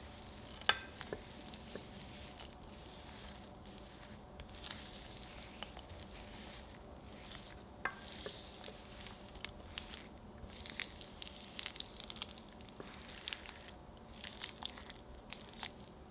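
Spatula stirring chunks of dark chocolate and butter as they melt in a glass bowl over hot water, with soft scrapes and light clicks against the glass throughout. The sharpest click comes about a second in.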